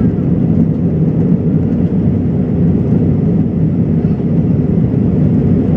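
Inside an Airbus jet airliner's passenger cabin during the climb after takeoff: the engines and rushing air make a loud, steady low drone.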